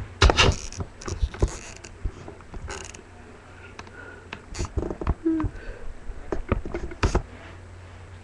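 Irregular knocks, bumps and rustling from a webcam being handled and repositioned close to its microphone, over a steady low hum.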